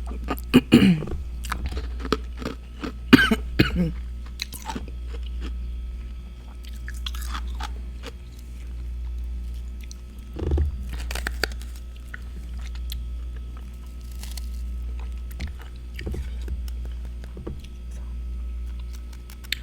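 Close-up crunching and chewing of freezer frost, with crackling bites. The bites come in bunches, loudest near the start, about three seconds in, and again about ten seconds in, over a steady low hum.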